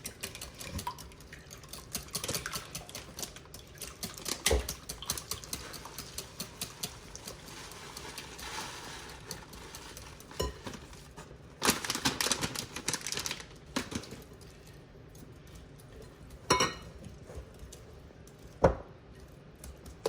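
Whisk beating eggs, heavy cream and shredded Parmesan in a bowl: a rapid clatter of strokes against the bowl, with a few sharp knocks.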